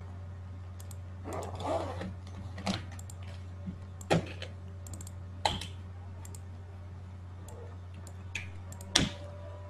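Scattered clicks and taps on a computer keyboard, about half a dozen separate strokes with one short flurry early on and the sharpest click near the end, over a steady low hum.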